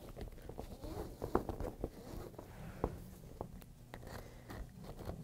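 Soapy lacing rope being pulled through the loops of a raft floor and collar: faint rubbing and rustling with a few small ticks.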